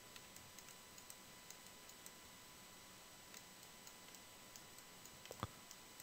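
Near silence with faint, scattered clicks from a computer mouse and keyboard, one a little louder about five and a half seconds in.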